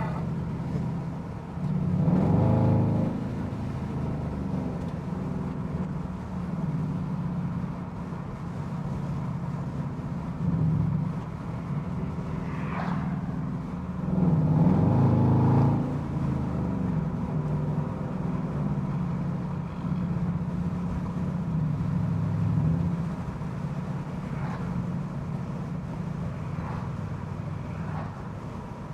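Car engine and exhaust running while driving, a steady low drone that swells and rises in pitch twice as the car speeds up, about two seconds in and again about halfway through.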